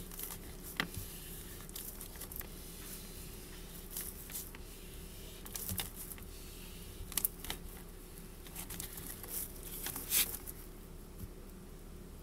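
Plastic RV sewer hose and fitting being handled and twisted, giving scattered crinkles and small clicks over a faint steady hum.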